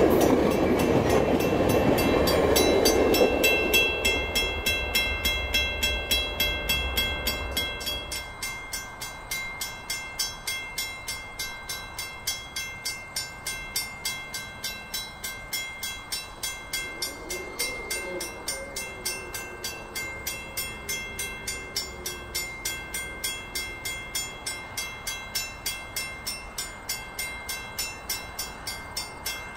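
Tail end of a VIA Rail passenger train's stainless-steel cars rolling past and fading away over the first several seconds. Throughout, a level-crossing warning bell dings steadily at about two to three strikes a second.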